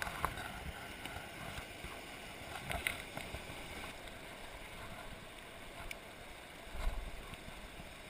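Rocky river rushing over stones in small rapids: a steady wash of water, with a couple of brief low bumps about three seconds in and near the end.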